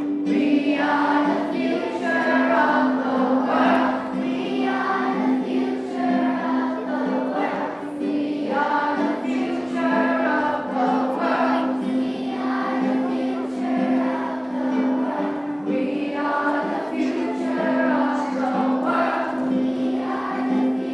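A large group of schoolchildren singing a song together in unison, accompanied by a strummed ukulele.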